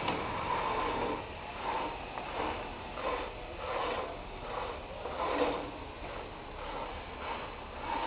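MP206CR automatic stretch wrapper running: the turntable turns and stretch film is drawn off the roll onto the load, a rasping, rubbing mechanical sound that swells and fades unevenly, about once or twice a second.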